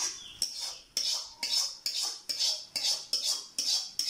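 Metal spatula scraping cooked beef out of a dark pan into a pot of rice, in a steady run of short metallic scrapes, about two a second.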